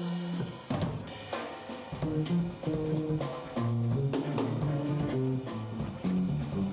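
Live jazz band playing, with the drum kit to the fore (bass drum, snare and rimshots) over a walking bass line and guitar notes.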